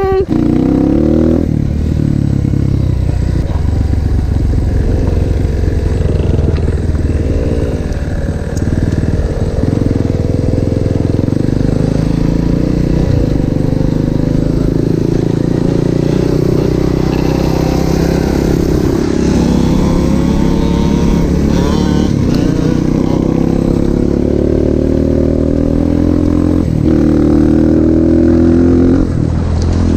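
150cc pit bike engine running while the bike is ridden, its pitch climbing again and again as it revs up and dropping back in between.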